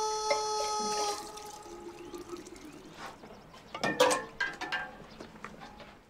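Liquid pouring from a spout into a glass jug, a soft splashing trickle, with a few light knocks near the middle. A held musical note fades out about a second in.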